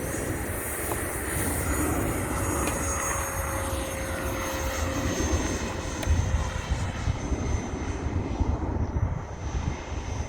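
Electric ducted fan of an RC model F-22 jet running at high power, a steady high whine that slowly falls in pitch. Gusty wind rumble on the microphone joins in about halfway through.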